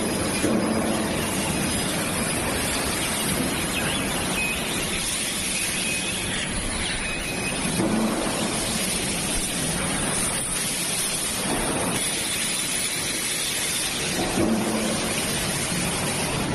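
Hans Yueming fiber laser cutting machines running in a workshop: a steady, loud hiss-like noise with small swells now and then.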